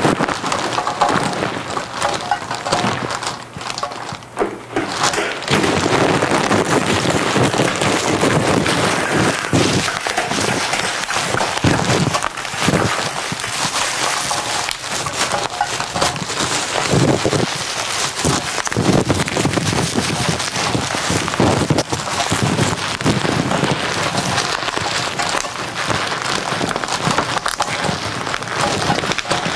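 Dense crackling and rustling of recyclable waste, such as plastic packaging and paper, being crumpled and handled, with many small clicks and knocks; it eases briefly a few seconds in.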